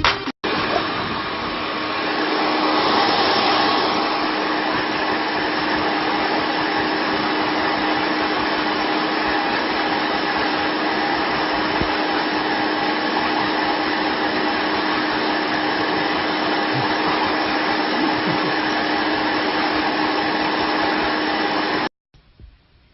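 Steady whir of an electric motor driving rushing air, with a fixed hum. It cuts off abruptly near the end.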